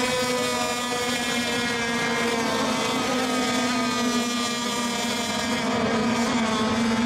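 Several radio-controlled racing boats running on the course together, their small engines holding a steady high-pitched whine.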